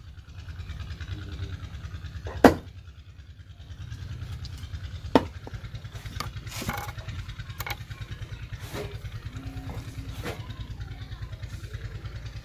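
Cleaver chopping through a large fish onto a wooden board: two sharp chops, about 2.5 and 5 seconds in, then lighter knocks. Under it runs a steady low pulsing engine throb.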